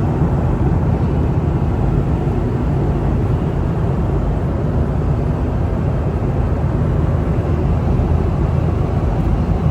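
Steady cabin noise of an airliner in flight: an even, unchanging rumble, strongest in the low range.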